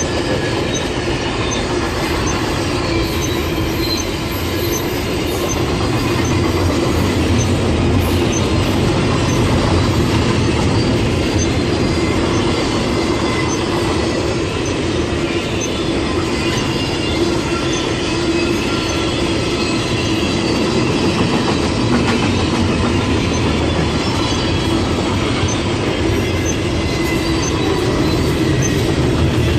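Train rolling past steadily, its wheels squealing thinly against the rails.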